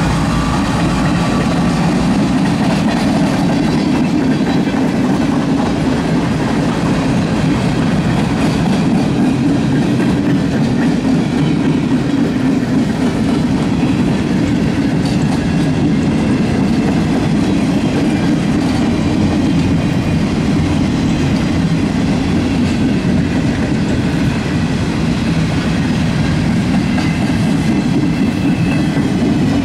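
Freight cars of a mixed manifest train rolling past close by: a steady, loud rumble and clatter of steel wheels on the rails.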